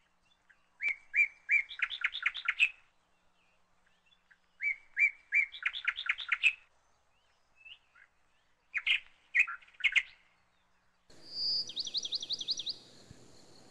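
Songbirds singing. Twice a bird gives a few separate notes that run into a fast trill, then a shorter phrase follows. About 11 seconds in, a steady hiss comes in under a higher, fast trill of repeated notes.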